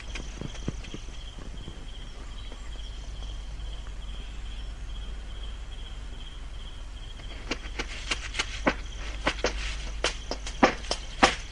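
Crickets chirping steadily over a low hum. About two-thirds of the way in, a quick, irregular run of sharp taps of footsteps comes in.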